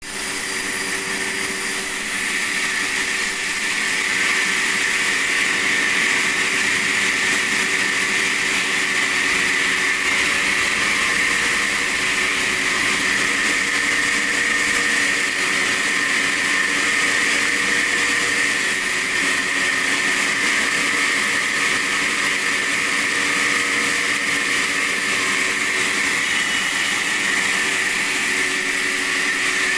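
Sawmill saw running steadily as it saws sheesham (Indian rosewood): an unbroken, even noise with a bright, high edge.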